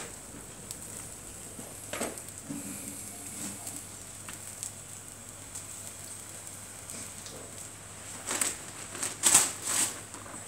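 Vegetables being peeled and cut by hand with a knife: soft scrapes and clicks, with a louder run of cuts near the end. A dove coos briefly about two and a half seconds in.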